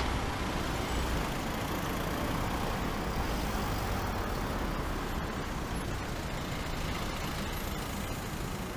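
City street traffic: cars driving past close by, a steady noise of engines and tyres.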